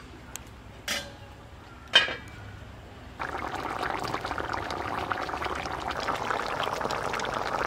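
Rui fish curry boiling in a metal pan, a dense steady bubbling that starts suddenly about three seconds in, as the gravy comes back to the boil with the fish in it. Before it, three sharp clinks about a second apart, the last the loudest.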